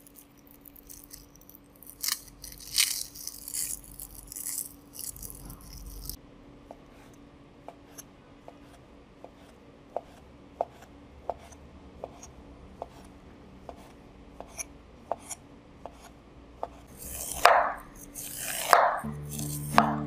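Kitchen knife slicing imitation crab sticks on a wooden chopping board, with steady sharp taps about one and a half a second after a few seconds of rustling handling. Near the end come several louder scraping cuts as the knife shaves kernels off a steamed corn cob.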